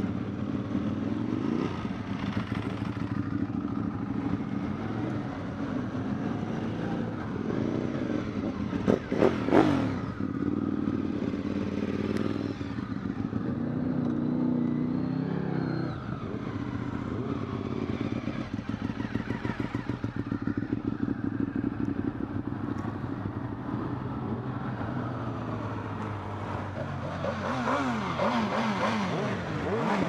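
Sport motorcycle engines running and revving, with sharp throttle blips about nine to ten seconds in and engine pitch rising and falling again near the end as bikes ride up close.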